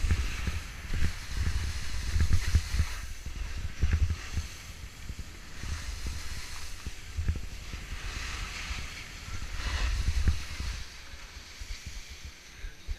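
Wind buffeting an action camera's microphone during a ski run, with the hiss of skis sliding and scraping over packed snow. It eases off near the end as the skier slows.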